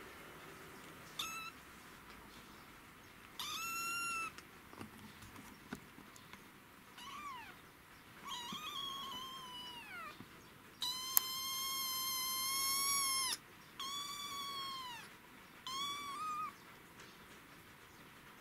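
A young kitten, about six weeks old, meowing repeatedly in high-pitched calls, about seven in all. Several slide down in pitch at the end, and the loudest is held for about two and a half seconds past the middle.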